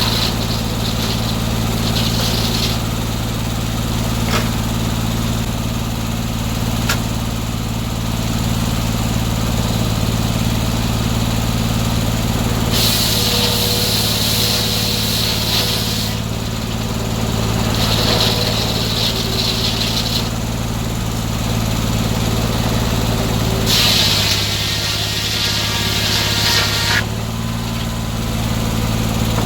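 Engine-driven circular sawmill running steadily, its blade set skip-tooth with 24 inserted teeth. Three times the blade hisses loudly for a few seconds as it cuts through the pine, the engine sagging slightly under the last cut.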